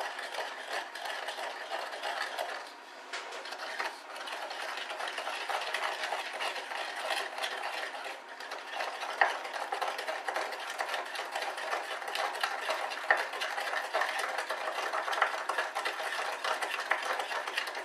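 Wooden spoon stirring quickly through a thick mix of melted chocolate, butter, demerara sugar and egg in a glass bowl: a fast, continuous scraping with the spoon now and then knocking against the glass.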